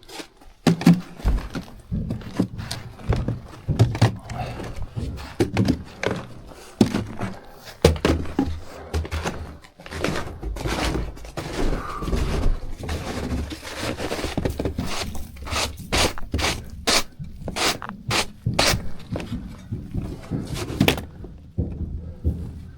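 Irregular knocks, thumps and scrapes in a small room, many of them sharp and several close together in a run near the end.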